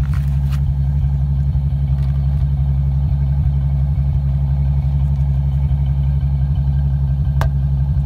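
BMW N73 V12 idling warm at the tailpipe, its exhaust pulsing with an uneven bump, bump, bump: a misfire on cylinder 8, which the owner suspects is an exhaust valve stuck open. One sharp tap near the end.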